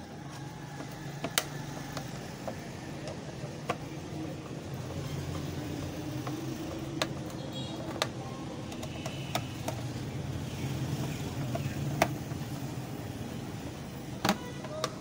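Screwdriver driving screws into a plastic switchboard cover, with scattered sharp clicks as the tip and screws turn and seat, over a steady low background rumble.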